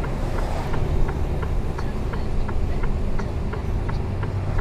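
Turn-signal indicator of a Mercedes-Benz Antos 1824 lorry ticking steadily, about three clicks a second, over the low drone of the truck's diesel engine heard inside the cab.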